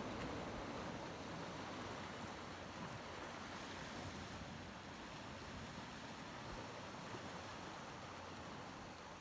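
Sea waves washing on a shingle beach: a steady hiss of surf that slowly fades.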